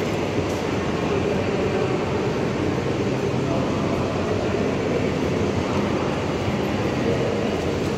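Steady din of a busy railway station concourse: many indistinct voices and general bustle under a large train-hall roof, with a constant low rumble.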